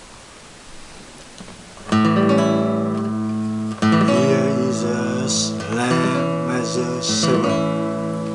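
Tambora flamenco acoustic guitar strummed: after a quiet start, a chord rings out about two seconds in and a second one about two seconds later, followed by more chords and single notes. These are practice chords for A minor seventh and A minor sixth shapes played up the neck.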